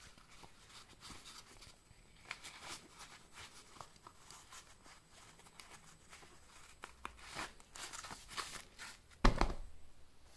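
Rustling and scraping of a nylon knife sheath as a folded pocket knife is pushed into it and the flap is closed. About nine seconds in, a single thump as the sheath is set down on the table.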